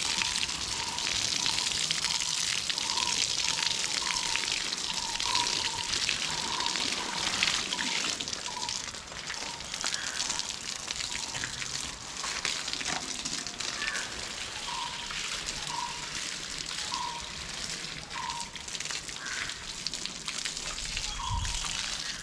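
Water gushing from a garden hose and splashing onto soil and plants as they are watered, a steady hiss that eases a little about halfway through.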